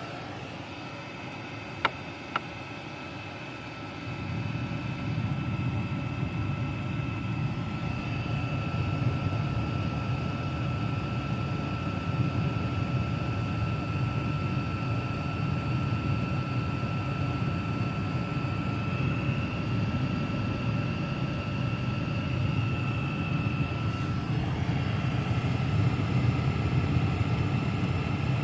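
Diesel air heater running steadily at full output, its combustion blower giving a steady whine over a hum. Two sharp clicks come about two seconds in, and the running noise grows louder about four seconds in.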